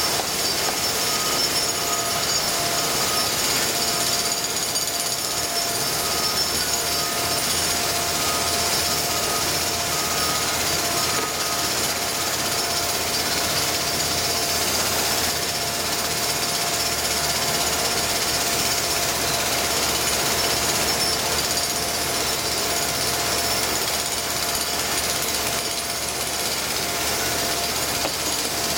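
Jackhammer hammering on concrete, running steadily without a pause.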